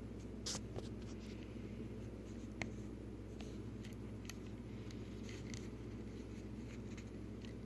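Steady low hum with scattered light clicks and scratches, the sound of small handling noises.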